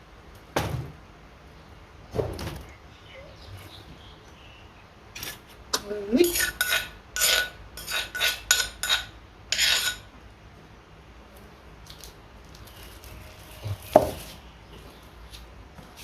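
Utensils clinking against dishes and bowls, with a few knocks early on and a quick run of ringing clinks from about five to ten seconds in.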